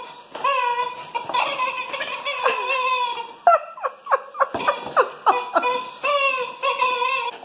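Latex rubber chicken squeaky toy squeezed in a terrier's mouth, giving repeated long, pitched squawks, with a quick run of short falling squeaks in the middle.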